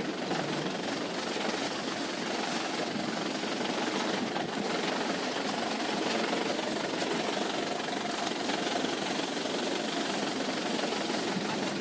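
A vehicle running steadily on the road: an even mix of engine and road noise with no sudden events.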